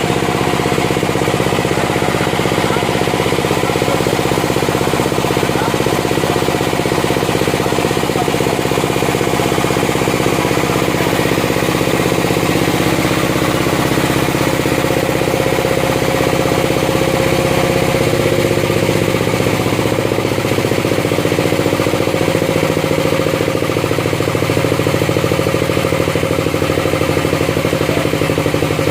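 An engine running steadily at constant speed, with a slight shift in its tone about two-thirds of the way through.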